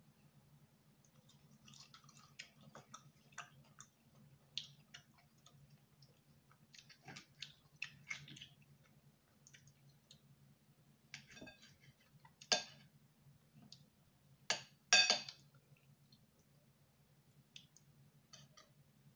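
Close-miked chewing and wet mouth clicks of someone eating fufu and soup, a patter of small irregular clicks, with a few louder sharp sounds in the second half.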